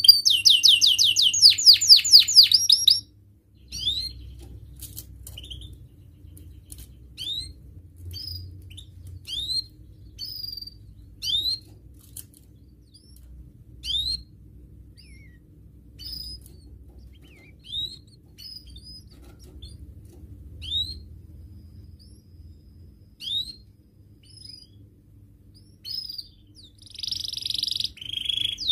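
Domestic canary singing. A fast, loud trill of rapidly repeated notes lasts about three seconds, then single short rising chirps come every second or two, and a loud burst of song returns near the end.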